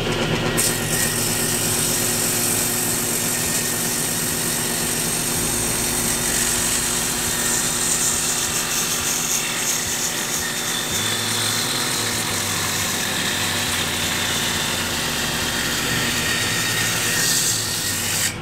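Table saw running and ripping a hardwood board: a steady motor hum under a loud, high-pitched hiss of the blade cutting.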